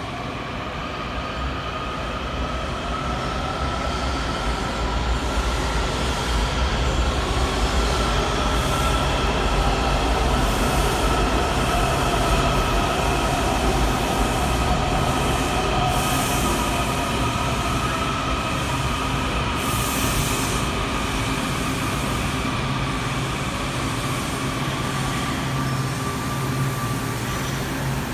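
Washington Metro subway train running into an underground station and slowing to a stop: a steady low rumble of wheels on rail under a whine of several tones that climbs slightly and then slowly falls in pitch as the train brakes. Two short hisses come near the middle.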